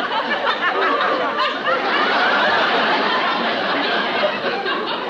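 A studio audience laughing, many voices at once in one long laugh that eases slightly near the end.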